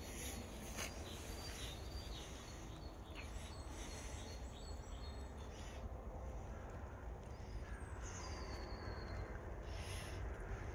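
Outdoor background noise with a steady low rumble, a few soft footsteps, and faint high bird chirps, including one thin falling whistle near the end.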